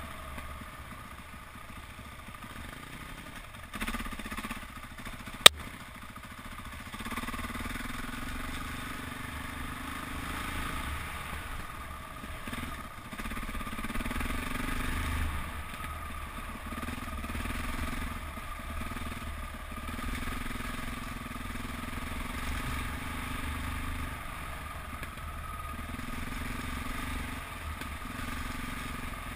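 KTM 400 EXC's single-cylinder four-stroke engine running under way, its note rising and falling with the throttle. A single sharp click about five and a half seconds in.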